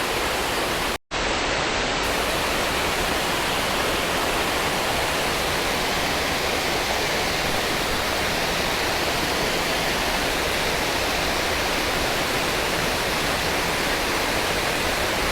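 Steady rush of water pouring over a creek spillway, cut off for an instant about a second in.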